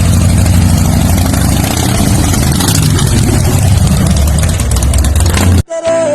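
Motorcycle engine running loudly and steadily at low revs, cutting off abruptly near the end as music begins.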